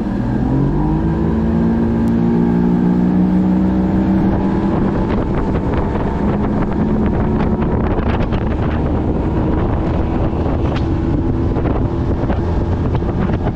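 A bass boat's outboard motor comes in suddenly, its pitch rising over about the first second as it speeds up, then runs at a steady speed. Wind buffets the microphone more and more as the boat runs.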